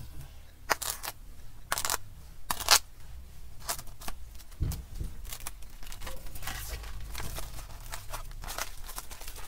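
Plastic cling film being cut and torn off the roll with a knife and crinkled as it is pressed over a foam tray: a series of short, sharp crackling tears, loudest in the first three seconds, then softer crinkling.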